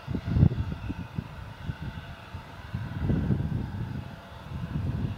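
Wind buffeting the microphone in uneven gusts, over the faint steady whine of a Bombardier CRJ regional jet's engines as the jet moves along the ground.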